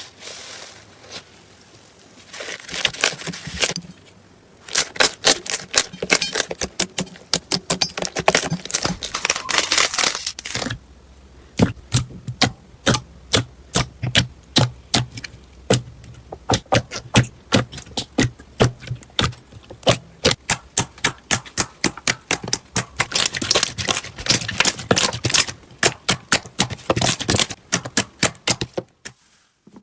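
Slime being pressed and worked by hand, giving rapid sharp clicks and pops. They are sparse at first, then run in a dense series from about five seconds in until just before the end.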